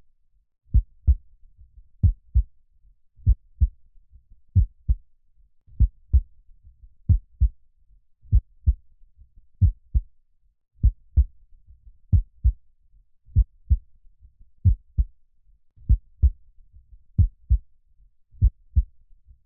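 Slow, steady heartbeat: a low double thump (lub-dub) about every 1.3 seconds, around 46 beats a minute.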